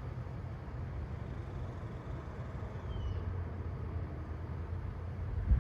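Gusty wind buffeting the microphone: a steady low rumble with an even hiss of wind over it, and a single thump near the end.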